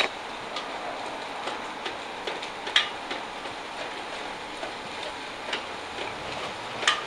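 Plastic blender jar and lid being handled: a handful of light clicks and knocks, the sharpest a little under three seconds in, over a steady background hiss.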